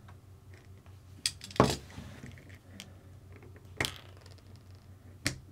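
Small hard parts of an RC car kit being handled and set down: a few sharp clicks and knocks, the loudest a knock about one and a half seconds in.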